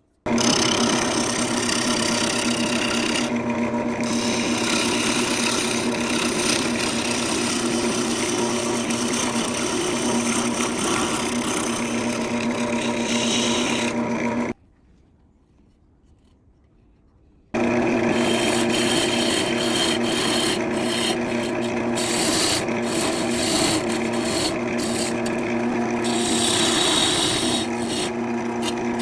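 Wood lathe running while a turning gouge cuts the spinning wood: a steady scraping hiss over a low, even hum. It cuts out abruptly for about three seconds midway, then resumes.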